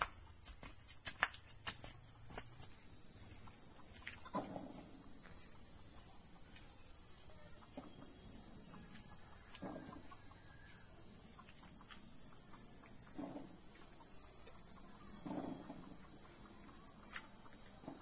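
Steady high-pitched chorus of insects, a continuous shrill drone that gets louder about two and a half seconds in.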